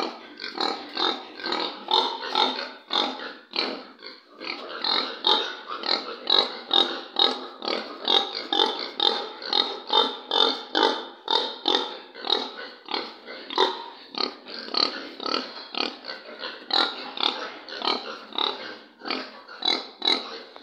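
Duroc boar and Large White sow grunting during natural mating: a rapid, steady series of short grunts, about three a second.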